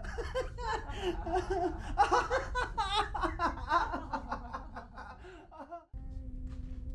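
A woman laughing hard, mixed with a man crying out, fading away over about five seconds. Near the end it cuts off abruptly to a steady low hum.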